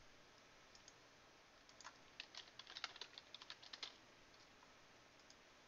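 Computer keyboard typing: a quick, faint run of about fifteen keystrokes, starting about two seconds in and stopping about four seconds in, as a username and password are entered.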